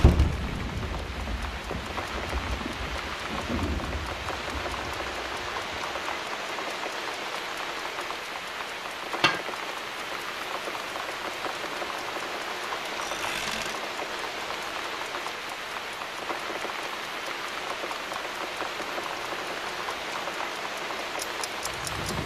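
Steady rain, with a low rumble of thunder dying away over the first few seconds and starting again near the end. A single sharp knock about nine seconds in.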